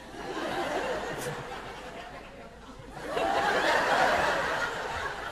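Theatre audience laughing, many voices together, easing off about two seconds in and then swelling into a louder burst of laughter about three seconds in.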